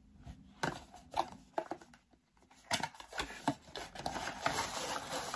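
A small cardboard advent calendar box being opened by hand: scattered taps and scrapes of card at first, then a continuous rustle of paper and card from about three seconds in as the contents are unwrapped.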